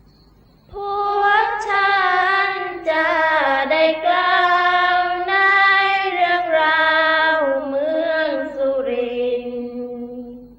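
A woman's voice singing one long, slow sarabhanya phrase, the Isan Thai Buddhist chant-song style, with no instruments. The melody glides and sinks to a held low note near the end, then stops.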